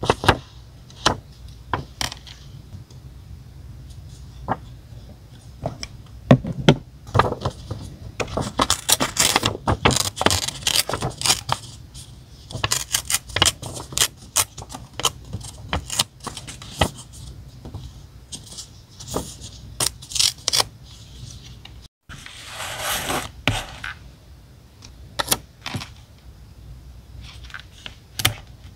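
Diary-decorating handling sounds close to the microphone: paper, stickers and small stationery being picked up, placed and pressed down. Many sharp clicks and taps, with a few brief rustles.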